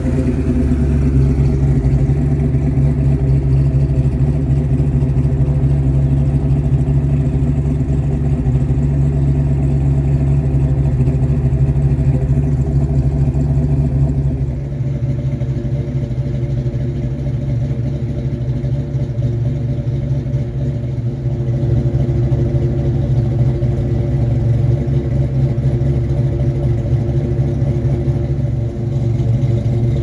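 Cammed 331 cubic-inch small-block Ford stroker V8 (Comp XE274HR cam, short-tube headers, H-pipe with Flowmaster mufflers) idling steadily, giving a classic cammed pushrod exhaust sound. Its tone changes a little about halfway through.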